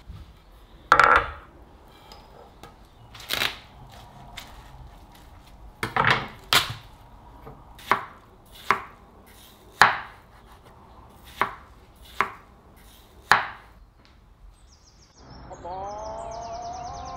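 Kitchen knife slicing through a watermelon and knocking on a wooden chopping board, about ten sharp strikes spaced irregularly. About two seconds before the end, a melodic sound with several held tones starts.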